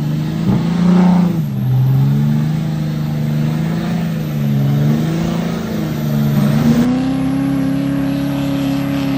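Truck engine revving, its pitch rising and falling several times, then holding steady at a higher pitch from about seven seconds in.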